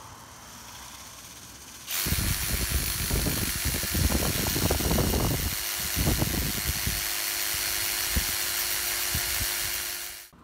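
Cordless hammer drill in hammer mode boring into a stone wall with a masonry bit, starting about two seconds in and running for about eight seconds before stopping.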